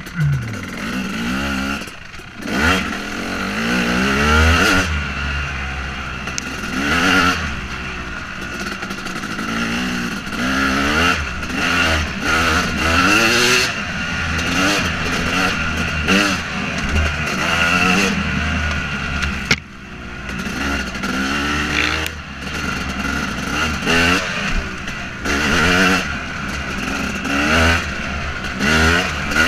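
2014 KTM 250 SX two-stroke motocross engine under way, its pitch repeatedly climbing and dropping back as the throttle is worked through the gears, with brief dips where the throttle is shut about two seconds in and again around the middle.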